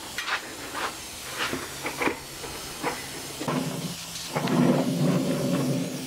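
Airbrush spraying paint onto a styrofoam ball in short hissing spurts, with a low steady hum coming in about halfway through.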